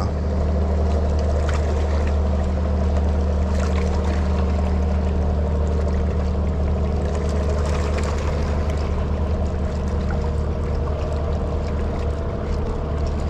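A steady, low engine drone with an even pitch that does not rise or fall, like a motor running at constant speed.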